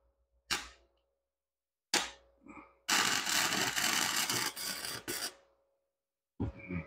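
Wire-feed welder's arc crackling steadily for about two and a half seconds as a weld is run on a steel motor-mount bracket, then cutting off. Two short sharp bursts come before it.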